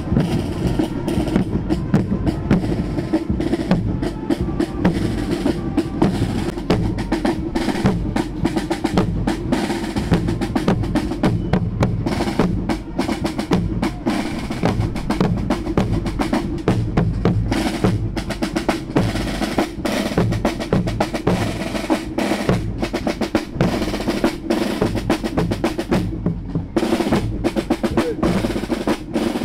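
Marching field drums of a fanfare corps playing a cadence of rapid, evenly repeating strokes.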